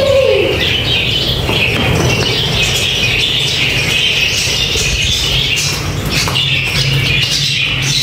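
A flock of budgerigars chattering and squawking continuously, many birds calling at once, with wings flapping as some fly about.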